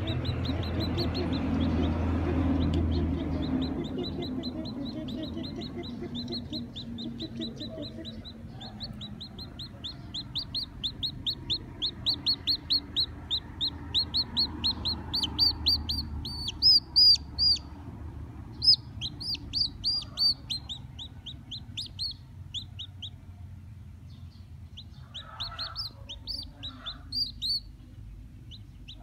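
A newly hatched chick peeping insistently: a long run of short, high cheeps, two or three a second, loudest about halfway through. A low rumble sits underneath during the first few seconds.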